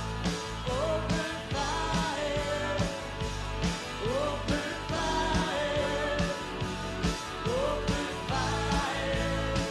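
Country-rock recording playing, with a steady drum beat under a lead line of sliding, bending notes and no sung words.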